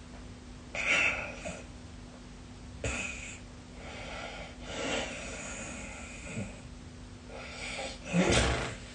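A sleeping person's irregular, heavy breathing and snoring: about five noisy breaths and snorts, the loudest near the end.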